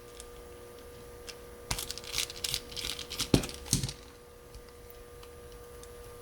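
A handful of light clicks and taps, clustered in the middle of the stretch, from handling a rusty mortise lock cylinder and its parts, over a faint steady hum.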